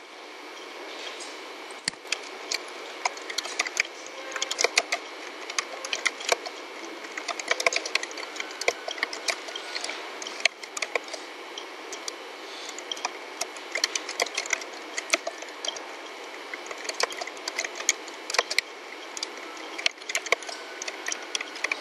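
Computer keyboard being typed on: irregular runs of key clicks, over a steady background hiss.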